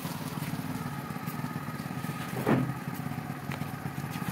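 Hero motorcycle's engine idling steadily, with one brief thump about halfway through.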